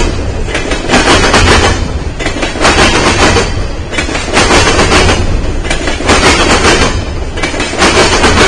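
Covered hopper cars of a freight train rolling past at close range: a steady rumble of steel wheels on rail, with a burst of clatter about every second and a half as the cars' wheel sets pass.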